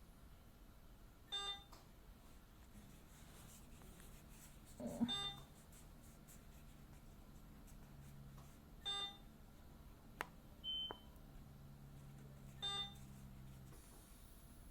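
Hospital bedside equipment beeping: a short beep with a buzzy edge repeating about every four seconds, four times, over a low steady hum.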